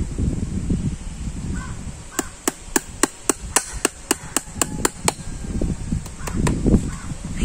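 Farrier's hammer nailing a metal horseshoe onto a horse's hoof: a quick run of about a dozen sharp taps, about four a second, starting about two seconds in.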